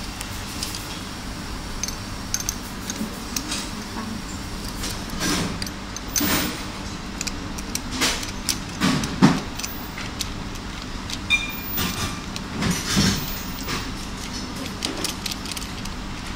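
Irregular metallic clinks, clicks and knocks of a stainless steel sanitary filter housing and its tri-clamp being handled, over a steady background hum. The knocks come louder and closer together a little past the middle.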